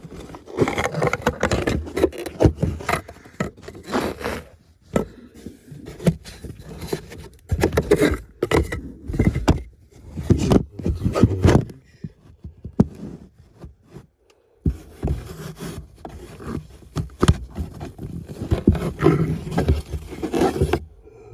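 A cabin air filter being worked out of its plastic housing under a car's dashboard: irregular scraping and rustling of the filter against the plastic, with clicks and knocks from handling. It comes in bursts with short pauses, and there is a longer lull a little past the middle.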